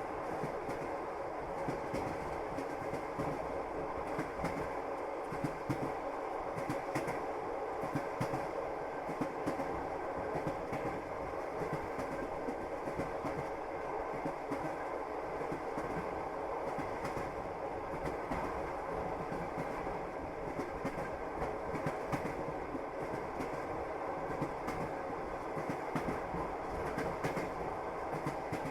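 Passenger train running steadily, heard from inside the carriage: a constant rumble of wheels on rails with irregular clicking and knocking of the wheels over the track.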